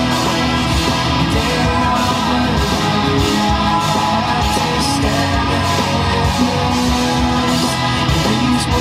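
Heavy rock music with distorted guitars and singing, playing loudly through a car stereo's speakers inside the cabin.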